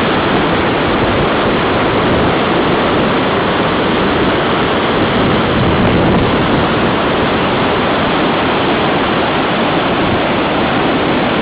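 Floodwater of the Wapsipinicon River rushing, a loud, steady roar of water with no letup.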